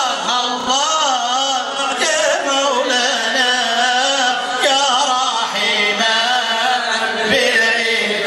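Male voice singing Sufi devotional praise (madih) in long, ornamented melismas, the pitch winding up and down through each drawn-out syllable.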